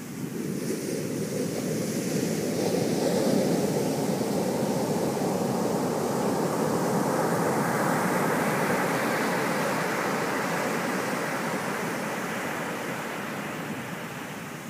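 Ocean surf: a wave breaks and its whitewater rushes up the beach, a steady hiss that swells about a second in, holds through the middle and slowly dies away near the end.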